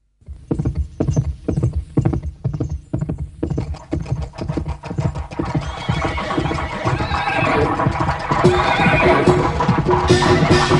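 Horses galloping, with fast hoofbeats and neighing, as the opening of a festive song. Music comes in and grows louder from about halfway.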